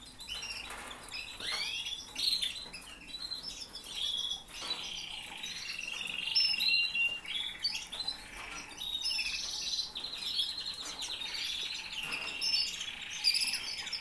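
Several canaries chirping and trilling, with many short calls overlapping.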